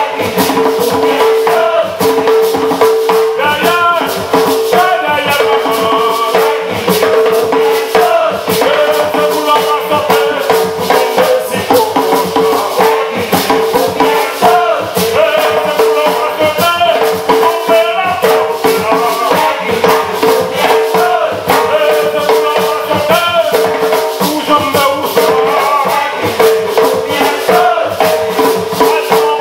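Live gwoka music: ka barrel hand drums beating a continuous rhythm, with a shaker rattling and a group of voices singing over it.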